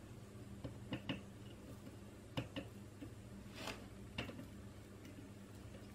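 Faint small clicks and taps of hand soldering, the iron tip and solder wire touching a circuit board held in a PCB holder: about six light clicks spread out, with a brief soft hiss just past the middle, over a low steady hum.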